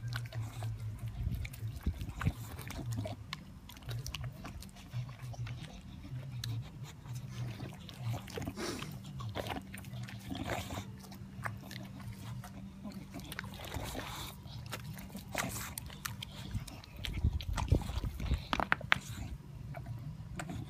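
Two bulldogs licking, slurping and chewing at frozen homemade dog ice pops on sticks, with wet lapping and biting noises throughout and a louder burst of chewing near the end.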